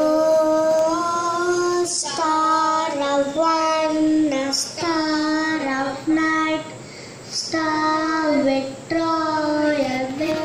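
Children singing a slow melody in held phrases into a microphone.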